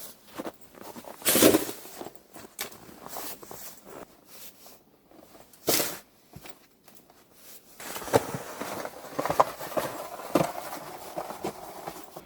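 Snow being shovelled by hand: irregular scraping and crunching, with two sharper, louder strokes, one about a second in and one near the middle, and denser scraping toward the end.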